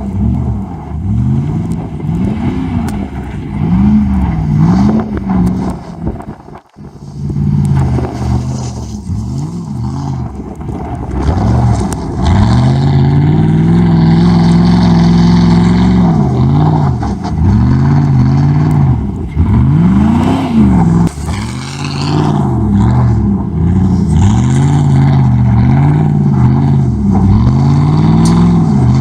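Straight-piped 5.3-litre V8 of a 2005 Chevrolet Silverado, loud, revving up and down over and over as the truck drifts in snow. It holds one long stretch at high revs about halfway through, and cuts out briefly for a moment about seven seconds in.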